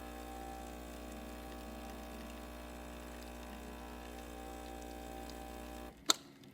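Breville Oracle espresso machine's pump humming steadily while pulling a double espresso shot, with liquid running. It shuts off near the end, followed a moment later by one sharp click.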